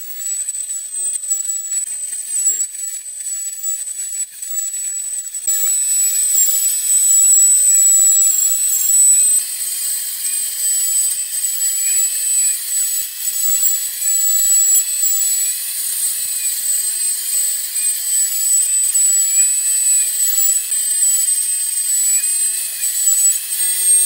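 Trim router mounted as a CNC spindle, running at high speed and cutting curved grooves in a hardwood panel: a steady high-pitched whine over a cutting hiss. It gets louder about five seconds in and drops away right at the end.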